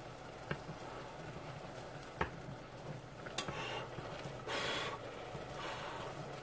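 Wooden chopsticks knocking and scraping against a stainless steel pot while stirring instant ramen noodles in a reduced broth that is starting to stick to the pot's bottom. A couple of sharp knocks early on, then a short rasping scrape about four and a half seconds in.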